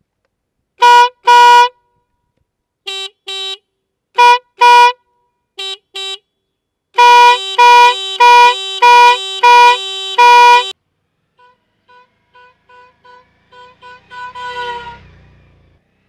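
A Stebel Nautilus compressor air horn on a motorcycle blasting very loudly: two pairs of short toots, the middle pairs quieter, then a long pulsing blast of about three and a half seconds. Near the end, a run of fainter short toots with an engine sound rising.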